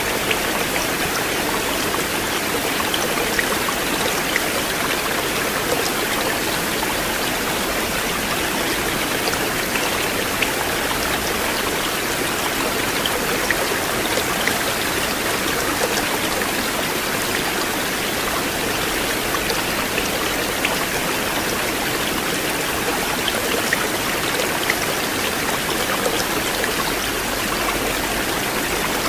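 River water flowing steadily, a continuous rush with small splashes and trickles flecked through it.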